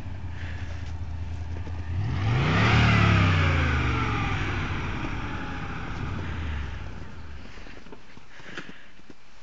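Tatra T-603's air-cooled V8 idling, revved once about two seconds in, the revs falling slowly back over several seconds before the engine dies away about seven seconds in.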